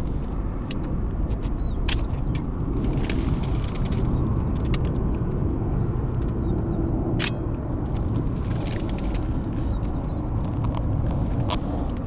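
Steady low rumbling background noise, with scattered sharp clicks and a few faint, short, high bird chirps.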